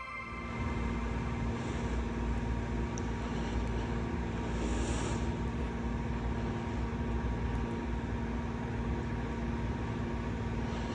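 A steady low rumble and hum with a faint constant tone, and a couple of soft high blips over it.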